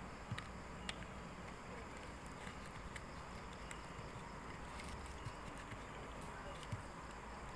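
Low steady background noise with a few light, scattered clicks and taps.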